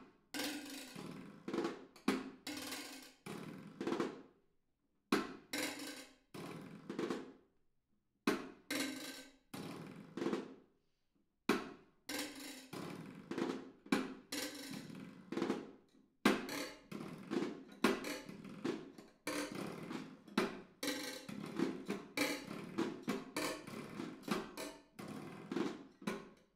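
Solo snare drum struck in fast, uneven phrases of strokes, each stroke ringing briefly, with short silent breaks between phrases.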